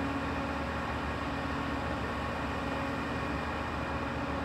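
Diesel generator running steadily: an even mechanical drone with a low hum and a few fixed tones above it.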